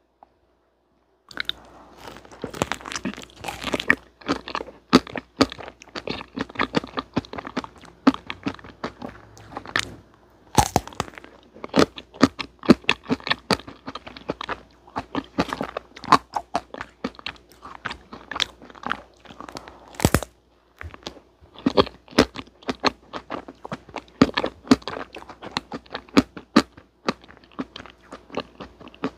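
Biting and chewing a chocolate-coated vanilla ice cream cake bar on a stick: the hard chocolate shell cracks and crunches in quick snaps, with wetter chewing in between. It starts just over a second in and pauses briefly about ten and twenty seconds in.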